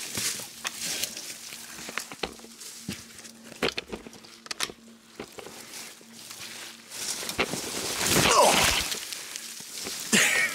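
Footsteps crashing through dense, thorny riverside brush, with twigs snapping and branches brushing past clothing in scattered sharp cracks. About eight seconds in comes a louder burst of scuffling with a falling pitched sound.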